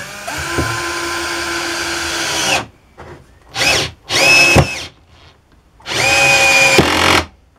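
Small 12V cordless drill-driver driving a screw into hardwood with no pilot hole: one run of about two and a half seconds, then three shorter bursts on the trigger. The clutch, set at 10, is reaching its limit and ratcheting.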